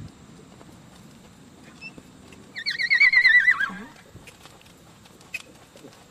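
A horse whinnying once, a loud, quavering neigh about two and a half seconds in that lasts just over a second and drops in pitch at the end.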